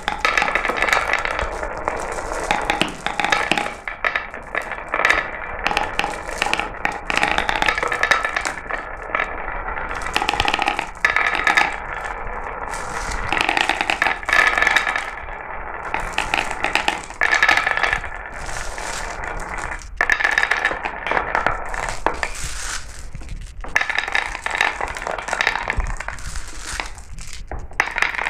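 Glass marbles rolling down a marble run, rattling along the track with a constant stream of sharp clicks as they knock against each other and the track.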